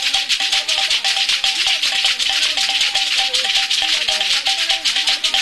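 Traditional Tchemou dance music from northern Togo: rattles shaken in a fast, even rhythm, with a short high tune that repeats over and over above lower wavering melodic lines.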